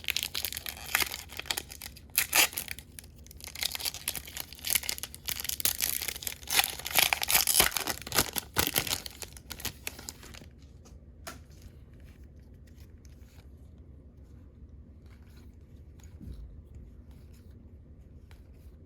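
Foil wrapper of a baseball card pack being torn open and crinkled by hand for about ten seconds, then falling much quieter, with only a few faint ticks of card handling.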